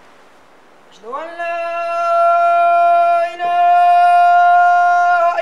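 A single long, steady held note that slides up into pitch about a second in, holds level with a brief break around the middle, and runs on.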